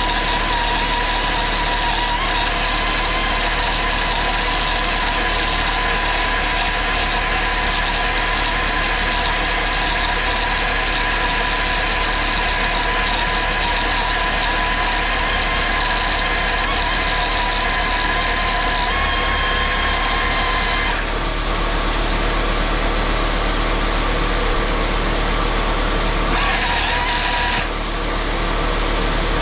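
Pneumatic angle grinder running flat out in a run-to-failure endurance test: a steady high-pitched whine over a hiss of rushing air. Twice near the end the hiss thins out briefly while the whine keeps going.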